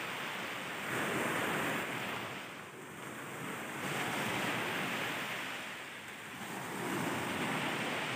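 Small waves washing onto a sandy shore, swelling and falling back about every three seconds.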